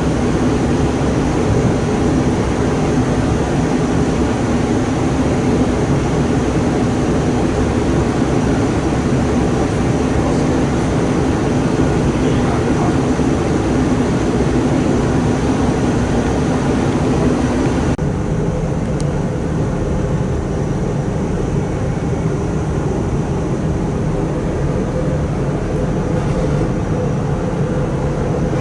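Kintetsu 'Raku' train running, a steady rumble and hiss. About eighteen seconds in, the higher hiss drops away suddenly, leaving a lower rumble.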